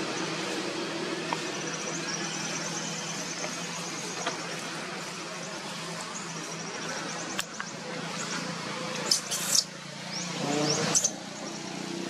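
Outdoor background noise with faint, high bird-like chirping, and a few sharp high squeaks or clicks late on.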